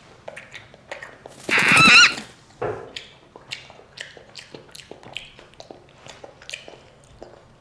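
A child chewing broccoli, a string of small crunches and mouth clicks at roughly two or three a second. About one and a half seconds in comes a brief, loud vocal sound with a wavering pitch.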